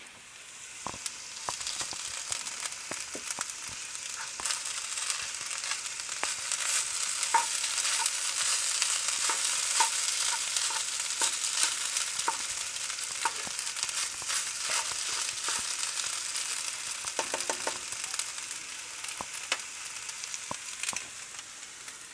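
Rice, broccoli, cod and shrimp sizzling in a hot divided skillet on the stove, with a utensil scraping and clicking against the pan as the food is stirred and scooped. The sizzle comes up about a second in and eases off near the end.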